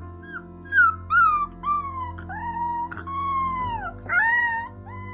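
Husky puppy howling in a string of short yowls, each rising and then falling in pitch. The loudest come about a second in and again near four seconds, over soft background music.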